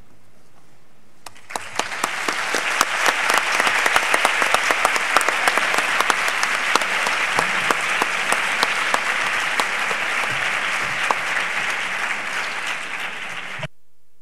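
Audience applauding after a talk: a dense patter of many hands clapping that starts about a second in, holds steady, and cuts off suddenly near the end.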